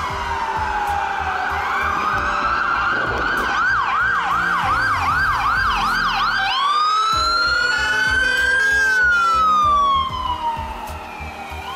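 Ambulance's electronic siren. It starts with a slow falling wail, switches to a rapid yelp of about three sweeps a second for about three seconds, then wails slowly up and back down again.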